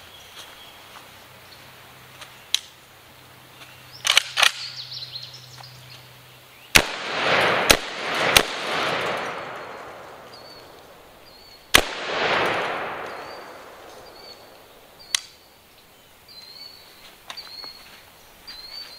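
G-Force Arms AR-style semi-automatic 12-gauge shotgun firing: three shots in quick succession about seven seconds in, then a fourth about three seconds later, each blast trailing a long rolling echo. A few sharp clicks come a couple of seconds before the first shot.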